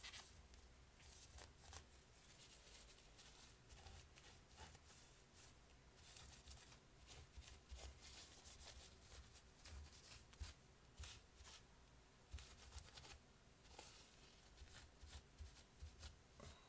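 Faint, repeated swishing and scratching strokes of a wad of paper tissue rubbed over the back of a graphics card's circuit board, wiping off leftover thermal-pad grease.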